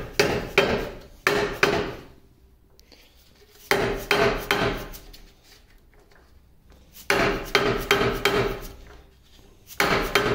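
Runs of quick mallet blows on the large multi-groove belt pulley of a 1950 LeBlond Regal lathe, knocking at the stuck pulley to loosen it from its shaft. Each run of blows leaves the pulley ringing, with pauses of a second or two between runs.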